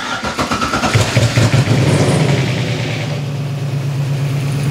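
V8 engine swapped into a Porsche 986 Boxster, cranking on the starter and catching about a second in. It runs up briefly, then settles into a steady idle.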